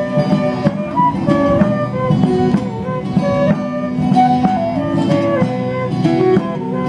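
Live medieval-style folk music: a transverse flute and a recorder play a melody over a strummed lute-like plucked string instrument, with a drum beaten in a steady rhythm.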